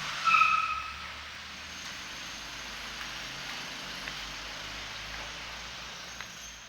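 Street traffic noise with a short, loud, high-pitched beep about a quarter second in that lasts about half a second, then a steady hum of passing vehicles.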